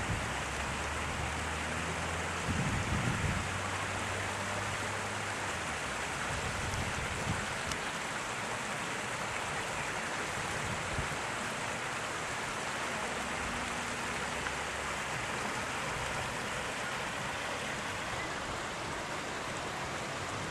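Fast-flowing floodwater rushing, a steady, even noise with no breaks. A low hum sits under it for the first few seconds and briefly again past the middle.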